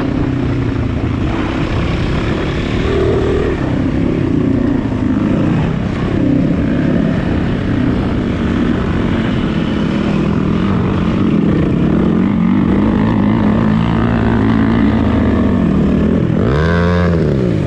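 Enduro motorbike engine, heard from on board, running at varying throttle as the bike is ridden slowly over a dirt motocross track. Its pitch rises and falls, with a quick throttle chop and pick-up near the end.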